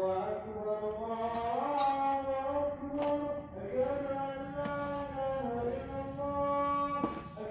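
Islamic call to prayer (adhan): one male voice chanting long held notes that slide slowly in pitch, with a few sharp clicks over it.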